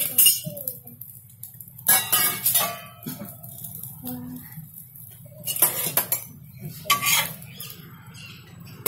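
Metal kitchen utensils scraping and clanking against a flat griddle and a steel plate as a bread omelette is lifted off to serve: several sharp clanks with a short metallic ring, bunched in groups with quieter scraping between.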